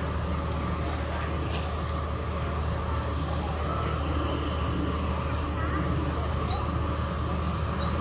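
Small birds chirping, many short high calls about two a second, over a steady low hum of background noise.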